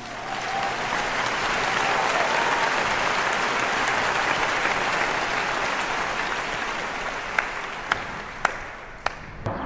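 Crowd applauding. It swells over the first second or two, holds, then thins out to a few single claps near the end.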